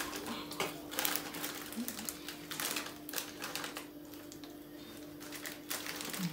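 Irregular crunching and crackling as cheese curls are chewed and hands rummage in their plastic snack bags, thinning out in the middle and picking up again near the end. A faint steady hum runs underneath.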